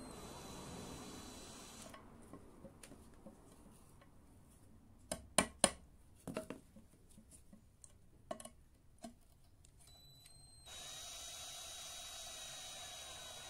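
Sharp clicks and taps as a screw and the drill bit are handled and set against a wooden plank, a tight cluster about five seconds in and a couple more a few seconds later. A steady faint hum with a thin high whine sets in near the end.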